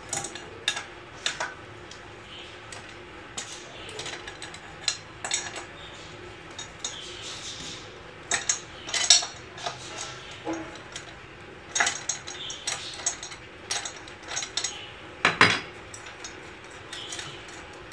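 Metal hand tools clinking and knocking on a generator engine as its cylinder head bolts are loosened with a wrench, in scattered sharp clicks. The loudest knocks come about nine seconds in and again near the end.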